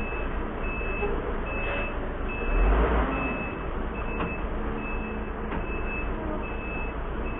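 Heavy-vehicle reversing alarm beeping steadily, about one beep every three-quarters of a second, over the low running of an engine.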